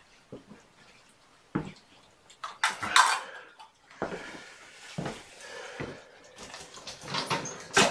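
A metal spoon clinking and scraping against a small plate as they are handled, with scattered knocks; the loudest clatter comes about three seconds in.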